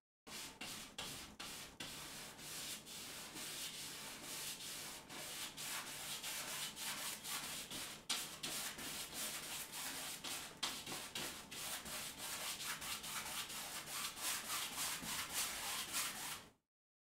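A wide paintbrush scrubbing paint onto a canvas in many quick, short back-and-forth strokes, a steady brushing hiss that stops suddenly near the end.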